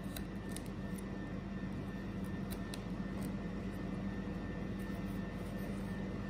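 Steady low machine hum, with a few faint light clicks and scrapes as a cake knife cuts a slice from a crumbly shortcrust tart topped with sliced almonds.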